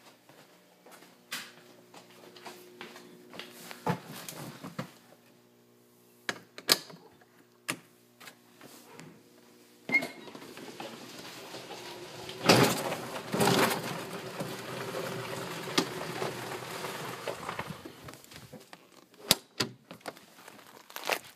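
2006 EZ-GO electric golf cart: clicks and knocks from its controls, then from about halfway through its electric drive motor whines steadily for several seconds along with a rush of tyre noise, before dying away to more clicks.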